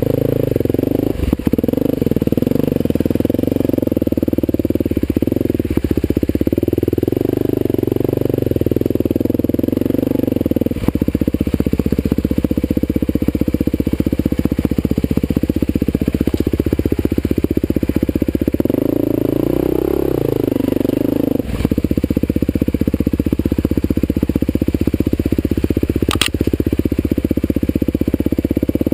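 Husqvarna TE511 dirt bike's single-cylinder four-stroke engine running steadily under riding throttle. The pitch rises and falls about two-thirds of the way in, and there are a few short sharp clicks, the clearest near the end.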